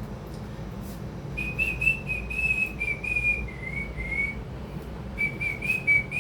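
A person whistling a simple tune: a single high tone stepping between a few notes and drifting downward. It starts about a second and a half in, breaks off near the middle, and picks up again about a second later.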